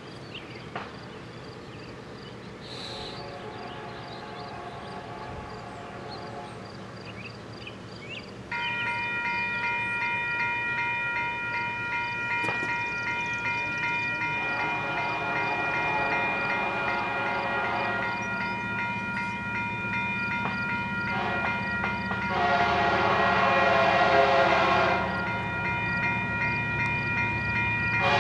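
Railroad crossing bell starting up about a third of the way in and ringing steadily as the crossing signals activate. Over it, an approaching freight locomotive's horn sounds long, long, short, long: the standard grade-crossing signal, growing louder, with the last long blast the loudest.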